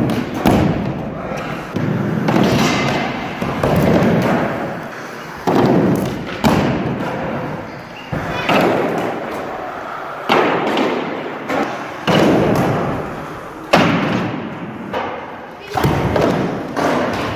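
Skateboards on a wooden quarter pipe and a hardwood gym floor: a string of sharp board clacks and landing thuds, about a dozen over the stretch, each followed by wheels rolling and echoing in the hall.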